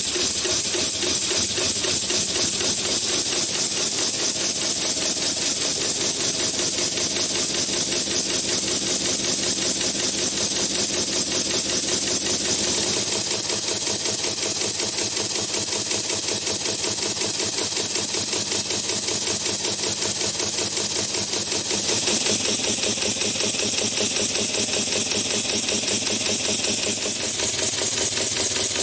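A homemade twin-cylinder beam engine running fast on compressed shop air, with rapid, even chuffing of its exhausting cylinders and clatter of its linkage over a steady hiss of escaping air. The character of the sound changes twice along the way.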